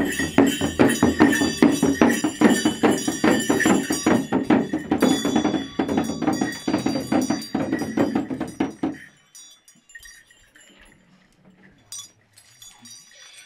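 Shaman's frame drum beaten in a fast, steady rhythm, with bells jingling and a wavering voice over it. All of it stops suddenly about nine seconds in. Only a few faint clinks follow.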